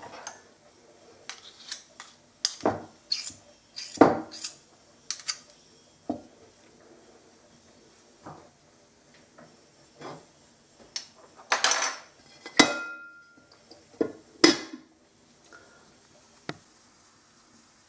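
Scattered knocks and clinks of kitchen dishes, with the loudest cluster about two-thirds of the way in and a brief ringing tone after one knock: a ceramic plate being set over a glass mixing bowl as a lid.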